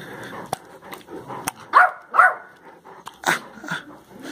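Dog barking in play: short, sharp barks, the two loudest close together in the middle and two more near the end, with a few light clicks between.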